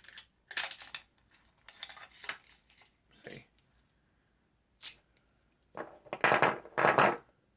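Metallic clicks and clatter of 7.62x54R cartridges dropping out of a Mosin-Nagant M91/30's opened magazine floorplate and knocking together. It comes in several bursts, with a single sharp click about five seconds in and the loudest clatter near the end.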